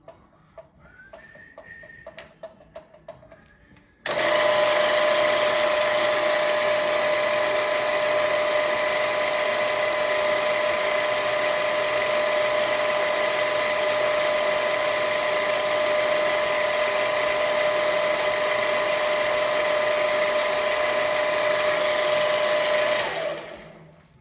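Myford VMA milling machine's motor running with a steady whine, starting abruptly about four seconds in and winding down with a falling pitch near the end.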